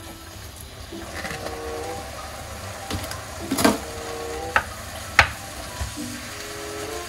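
Kimchi and pork sizzling as they fry in a pan. A wooden spatula stirs and scrapes through them, knocking sharply against the pan a few times past the middle.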